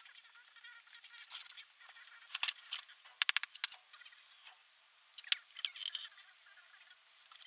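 Small clicks, taps and short scrapes of tools and parts being handled during guitar setup work, with a quick run of four clicks about three seconds in and a single sharp click about five seconds in.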